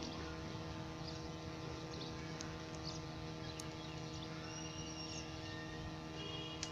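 Steady outdoor ambience: a constant low hum and rumble, with a few faint high chirps and light clicks.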